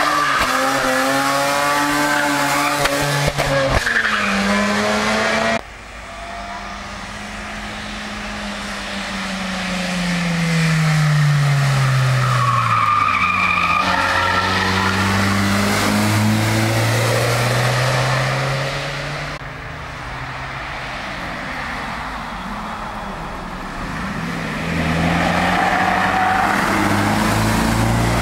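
Racing cars taking a hairpin one after another, engines revving up and falling away in pitch, with tyres squealing. First comes a Mazda RX-8's rotary engine, then other cars after sudden cuts.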